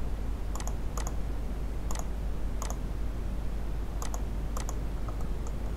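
Computer mouse button clicking, about eight short sharp clicks, some in quick pairs, as reference lines are picked to place dimensions, over a steady low hum.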